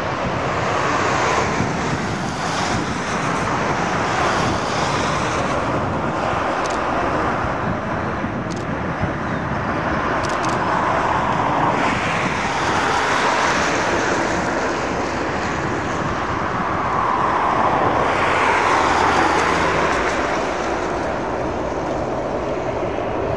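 Boeing 737 jet engines running at taxi power as the airliner rolls past, a steady rushing noise that swells a little a few times, mixed with wind on the microphone.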